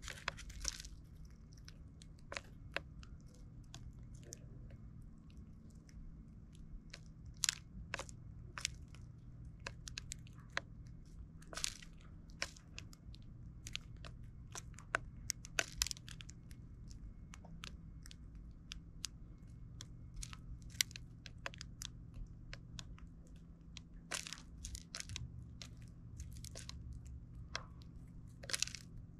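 Eurasian tree sparrows pecking at mixed seed in plastic trays: irregular sharp taps of beaks on the tray and seeds cracking, sometimes in quick runs, over a low steady background hum.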